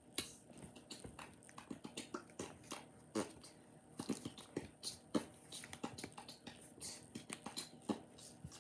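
Handling noise close to the microphone: irregular clicks and crinkles, several a second, with no speech.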